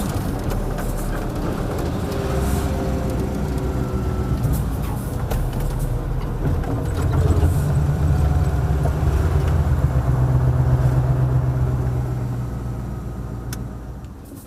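The V8 turbodiesel of a 1989 Mercedes-Benz SK 1748 truck running. It grows louder about halfway through as the engine pulls harder, then fades out near the end.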